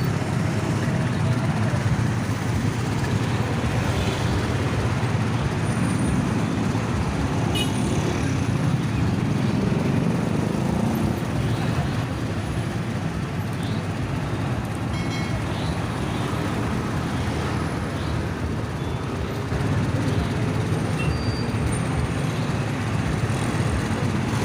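Steady traffic noise on a busy main road: the engines and tyres of passing cars, buses and trucks.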